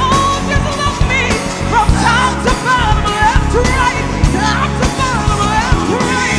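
A woman singing soulful, melismatic vocal runs over a live band with drums, bass and keyboard.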